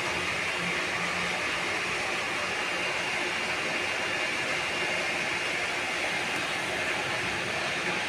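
Small electric water pump feeding a stainless-steel pressure tank, running with a steady, unbroken hiss and whir.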